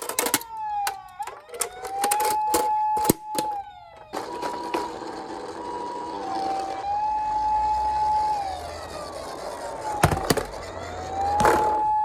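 Electronic sirens of toy ambulance minicars: a held high tone that glides down and back up, and a two-tone hi-lo pattern. During the first four seconds there are many sharp plastic clicks and knocks, then a steady rolling rattle with one sharp knock about ten seconds in.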